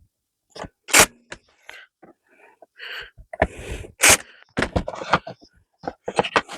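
Irregular sharp knocks and clacks of pine slats being handled and fitted together, with short scraping sounds of wood on wood in between.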